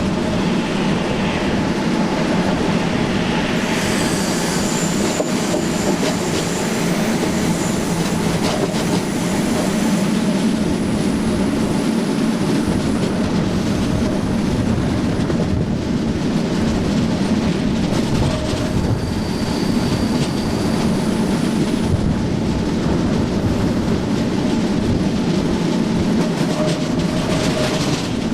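SNCB AM80 electric multiple unit running steadily at speed, heard from on board: motor and running-gear noise with clicks from the rails. Thin high wheel squeals come in about four seconds in and again around nineteen seconds.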